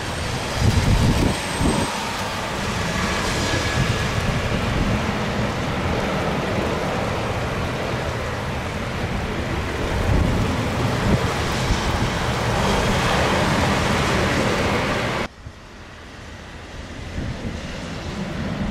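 Jet airliner engines running on a wet runway, mixed with strong gusty wind buffeting the microphone. About fifteen seconds in the sound drops off suddenly, then a quieter jet rumble builds again.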